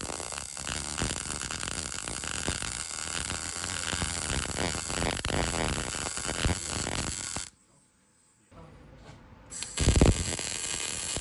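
MIG welding arc crackling steadily as a bead is run on a steel plate in a Jeep frame rail. The arc cuts off about seven and a half seconds in, then strikes again about two seconds later and keeps crackling.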